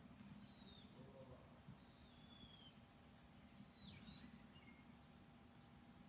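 Faint bird calls: a high whistled note that slides downward, repeated four or five times about a second and a half apart, over a low steady background hum.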